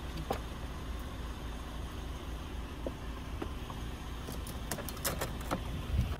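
Steady low outdoor rumble, with a quick cluster of light clicks and taps about four to five and a half seconds in.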